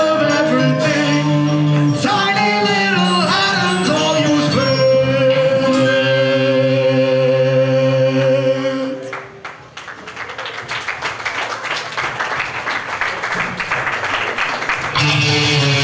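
Live rock band with a male singer; about halfway through he holds one long note with vibrato. The band then stops and a noisy wash rises for several seconds, until the band comes back in on guitar near the end.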